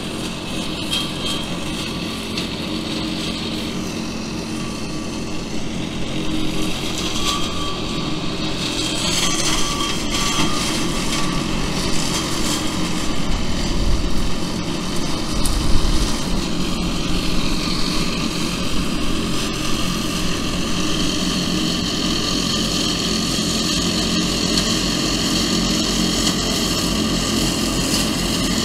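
Tractor-mounted flail hedge cutter working a hedge, the tractor engine and spinning flail head running steadily and growing louder as the machine draws closer. A single sharp knock about halfway through.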